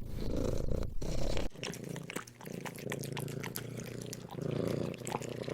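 Domestic cat purring: a steady, finely pulsing low purr.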